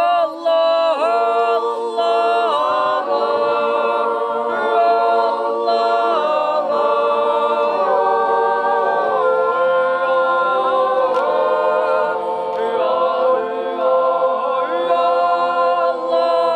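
A group of voices singing unaccompanied and without words, holding slow sustained chords and sliding between them in the manner of an Appenzell natural yodel (Zäuerli).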